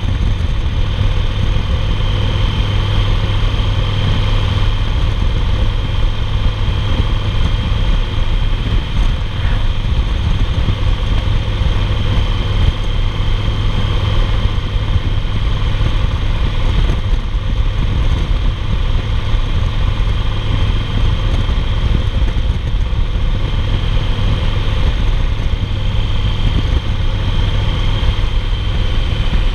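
2008 Yamaha Roadliner's air-cooled V-twin engine running steadily at highway cruising speed, with wind and road noise.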